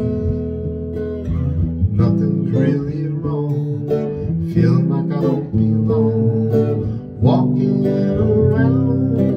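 A man singing a slow song while strumming a guitar, with the chords ringing on under his voice.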